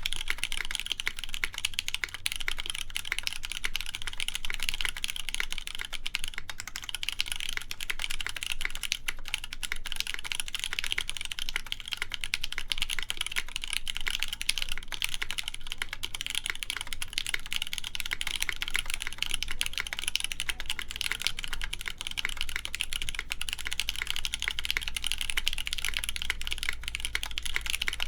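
Continuous fast typing on a mechanical keyboard with lubed linear Cherry MX Black Clear Top switches, GMK keycaps and a full polycarbonate plate: a dense, even stream of key clacks.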